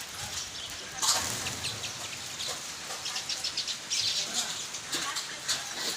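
Birds chirping, many short high calls overlapping, with a louder burst of noise about a second in.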